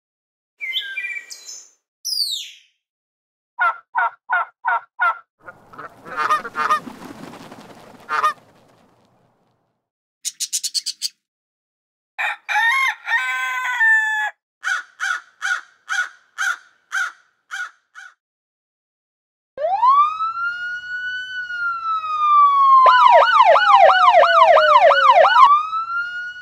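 A run of separate short sound effects: trains of repeated honking or beeping pulses, a brief noisy burst and quick high chirps. Then an emergency-vehicle siren wails slowly up and down, with a fast yelp warble over it near the end.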